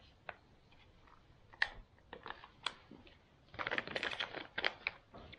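Scattered light clicks and crinkles from a freeze-dried food pouch being handled, with a dense run of crinkling about three and a half to five seconds in.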